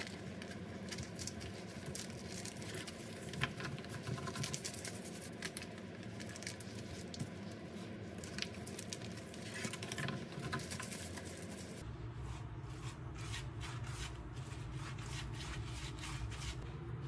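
Gimbap being rolled and pressed in a bamboo mat: light clicks and rustling of the bamboo slats, laver sheet and gloved hands. About twelve seconds in the sound changes to a hand rubbing sesame oil over the surface of the seaweed-wrapped rolls.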